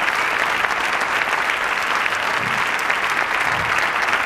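Audience applauding steadily, a dense, even clapping throughout.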